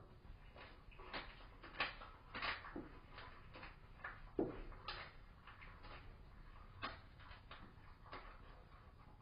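Irregular clicks, crunches and knocks as an Amur leopard kit bites at and tugs a small hoofed carcass on the wooden floor of its den box.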